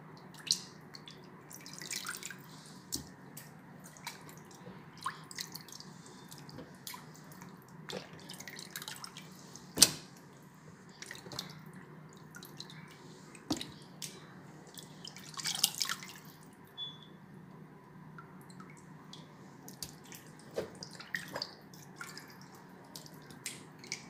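Water splashing and dripping in a plastic basin as raw chicken pieces are washed by hand and water is scooped over them: scattered small splashes and drips, the sharpest about ten seconds in.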